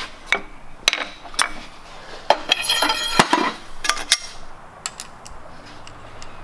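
Metallic clicks and clanks from a manual ratcheting tube bender being released, its handle worked back and the aluminum tube shifted in the die. It comes as a series of sharp separate clinks, thickest about halfway through.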